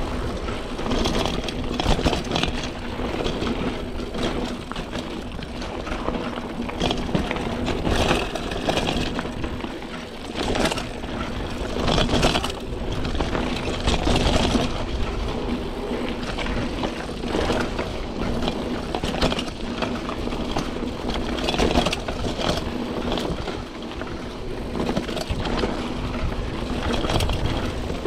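Trek Marlin 7 hardtail mountain bike ridden along a dirt trail: a steady rush of tyre and wind noise, broken by frequent sharp knocks and rattles as the bike goes over bumps.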